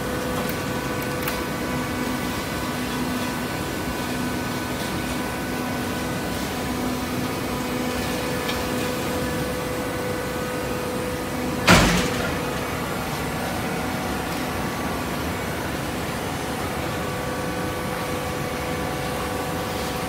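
Horizontal hydraulic baler running with a steady machine hum made of several fixed tones. One loud bang a little past halfway through.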